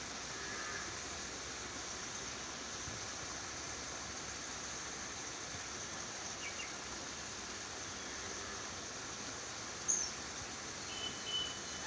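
Steady outdoor background hiss with a few faint, short chirps and a brief sharp sound near the end.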